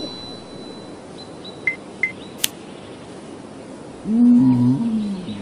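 A sharp click and a couple of faint short chirps, then an animated caveman's wordless grunt lasting about a second, rising, holding and then falling in pitch near the end.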